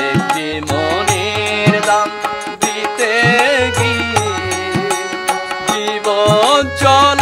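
A man singing a Bengali song to his own Suhashee hand-pumped harmonium, whose reeds hold steady notes under his wavering vocal line. Tabla strokes keep time underneath.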